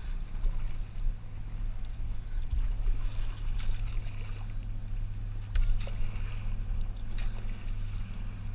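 Kayak paddle dipping and splashing in calm water, with water dripping off the blade over several strokes, over a steady low hum and low rumble.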